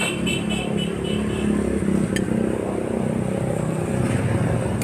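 Street traffic: a motor vehicle engine, most likely a motorcycle, running close by with a steady low rumble, and a sharp click about two seconds in.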